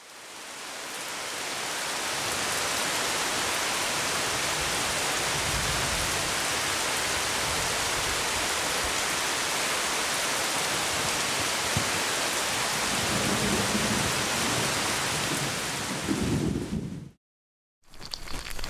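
Steady heavy rain, a dense hiss fading in over the first two seconds, with low rumbles of thunder in its last few seconds. It cuts off suddenly for under a second near the end, then comes back as rain spattering on a surface.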